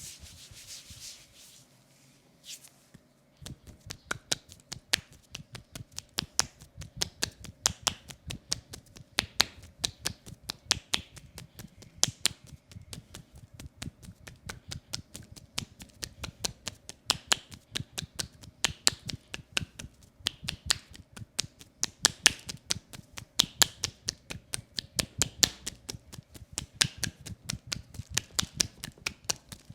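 Rapid hand tapping on a leg in a percussive massage: quick slaps, several a second, starting about three seconds in after a brief quiet pause and going on steadily with uneven strength.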